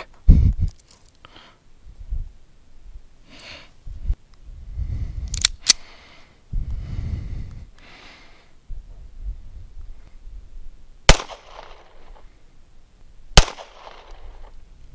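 Two handgun shots about two seconds apart near the end, each a sharp crack followed by a short echo. Earlier there is a dull thump near the start and some scuffing and rustling.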